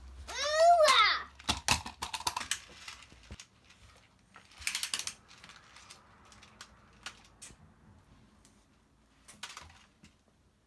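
Small plastic toys clicking and knocking as they are handled, in scattered light taps. Near the start there is a short, loud, high squeal that rises and then falls in pitch, and about halfway there is a brief hiss.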